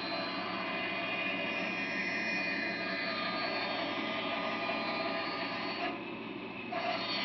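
Grizzly G0555LX bandsaw running steadily while resawing wood with a 1/2-inch Wood Slicer blade. The sound drops for under a second about six seconds in, then picks up again.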